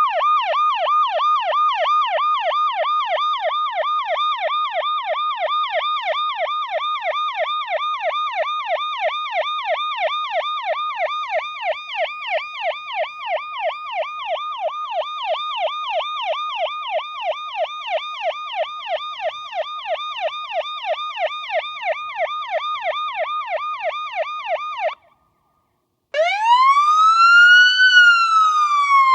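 Electronic police siren in a fast yelp, about three to four falling sweeps a second, for most of the stretch. It cuts out for about a second near the end, then restarts as a slow wail rising and falling in pitch.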